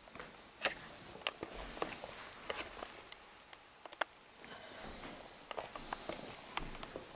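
Soft footsteps on carpet and handling noise from a handheld camera as it is carried across a room: scattered light clicks and knocks, with a faint rustling hiss in the second half.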